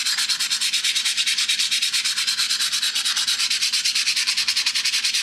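Sandpaper rubbed by hand back and forth over a flat steel channel section: a steady scratching of abrasive on bare steel in quick, even strokes.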